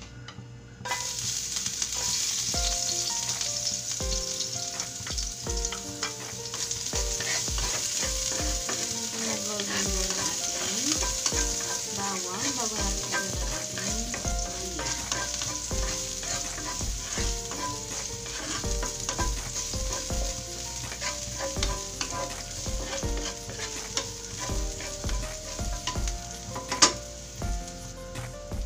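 Minced garlic and ginger sizzling in hot oil in a stainless steel frying pan while being stirred with a wooden spatula. The sizzle starts suddenly about a second in, when the garlic hits the oil, and keeps going steadily, with one sharp knock near the end.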